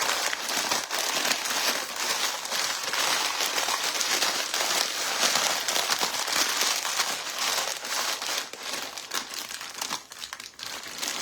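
Corn chips being crunched up by hand: a dense, continuous crackling and crunching that thins out near the end.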